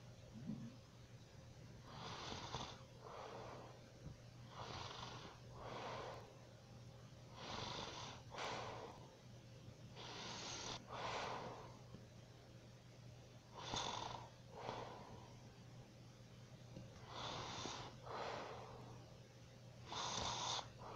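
A sleeping woman snoring softly: a noisy breath in and a breath out, repeating about every three seconds. A steady low hum runs underneath.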